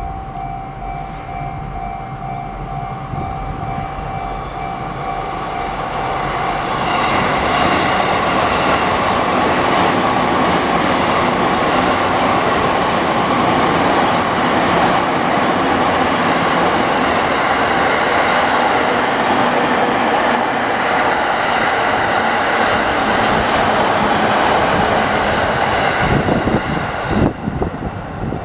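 Japanese level-crossing electronic warning bell, the JR standard sound pitched slightly high, ringing a repeated ding. About seven seconds in, a train passes over the crossing close by and drowns the bell for about twenty seconds. The sound stops abruptly near the end.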